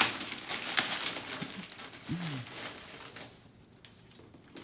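Rustling, crinkling and clicking of packaging as a box is handled and opened, dense for the first three seconds and then quieting. A short hummed vocal sound about two seconds in.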